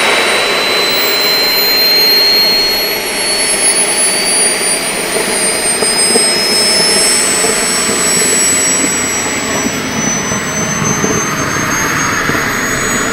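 Turbines of radio-controlled model jets running on the ground: a loud rushing blast with high whines, one rising in pitch while others fall.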